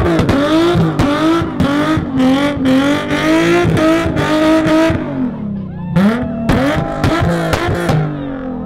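Car doing a burnout: the engine is held at high revs with the pitch wobbling, over tyre hiss and repeated sharp cracks. The revs drop about halfway through, flare briefly, then fall away steadily near the end.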